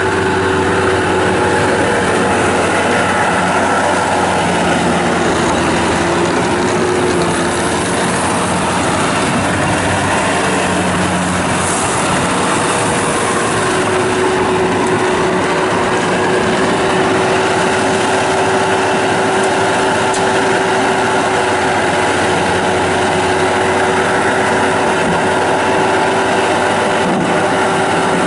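Bobcat T190 skid steer loader's diesel engine running steadily at a constant pitch.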